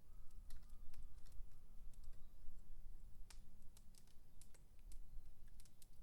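Wood campfire crackling: irregular sharp snaps and pops over a low rumble.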